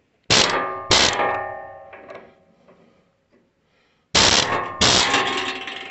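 Hand-held pneumatic air chisel hammering a rusted, seized bolt in a steel leaf-spring hanger, in two pairs of short bursts about four seconds apart, with the steel ringing after each burst. The rapid blows vibrate the seized bolt loose.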